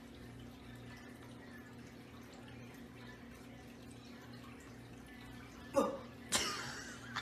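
A low steady electrical hum. Near the end comes a short cry falling in pitch, then about half a second later a louder sudden vocal outburst that trails off.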